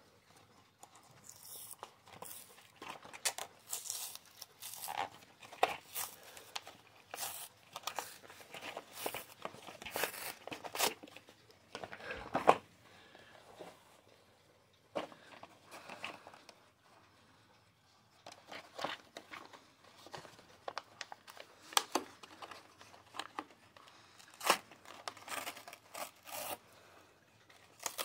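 Cardboard-backed plastic blister pack being torn and crinkled open by hand, in irregular crackles and rips with a couple of short pauses.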